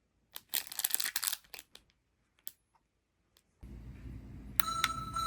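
Rustling and clicking as a Tokaido Shinkansen 60th-anniversary chime keychain is handled, then a click of its button and the hiss of its small speaker switching on. About four and a half seconds in, its electronic train chime melody begins, slightly distorted.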